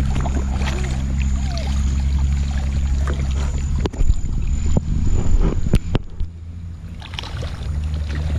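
A child splashing through shallow, muddy flood water as he swims and wades, over a steady low hum that drops out for a few seconds midway. A few sharp knocks sound around the middle.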